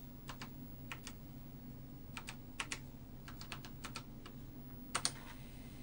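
Typing on an Apple IIe keyboard: unevenly spaced key clicks as a command is entered, the loudest a close double click about five seconds in.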